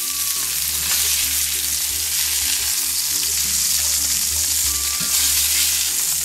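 Ahi tuna steaks searing in hot olive oil in a skillet: a steady, loud sizzle, with a short knock about a second in.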